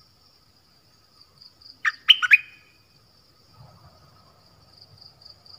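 A bulbul calls once about two seconds in: a quick, loud phrase of three sweeping whistled notes. A faint, steady high insect buzz runs underneath.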